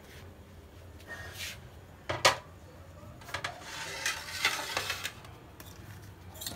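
Drinking glasses being set down on a plate: one sharp clink about two seconds in, then a stretch of scraping and light knocks.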